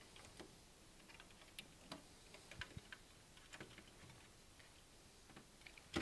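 Faint, scattered small clicks and ticks of hands seating the orange wire of a CAT6 UTP cable into a slot of an LSA (Krone) patch-panel terminal block. A sharper click comes right at the end as the punch tool is pressed onto the block.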